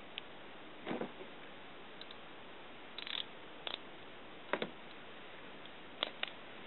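Socket ratchet wrench clicking in a few short, irregular spurts, with light metal clinks, as a scooter's gear case drain nut is loosened.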